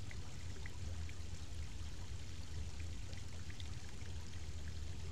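River water flowing and rippling past rocks: a steady rush with a low rumble underneath and a few faint scattered ticks.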